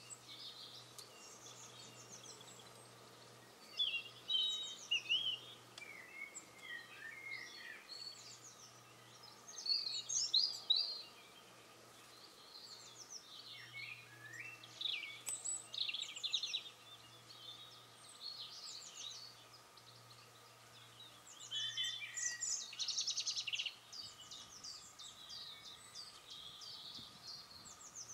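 Songbirds singing: bursts of quick chirps and trills, some phrases a few seconds apart and a busier stretch near the end, over a faint steady low hum.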